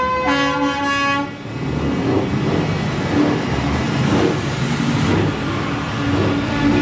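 Semi-truck air horns blowing a multi-note chord that cuts off about a second in, then truck and street noise, with a low horn tone coming back near the end.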